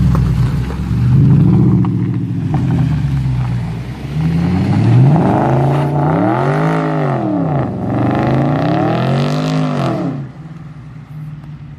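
BMW N62 naturally aspirated V8 idling and being revved repeatedly with no load. Its pitch rises and falls with each blip, and two long revs come in the second half before it settles back to idle near the end.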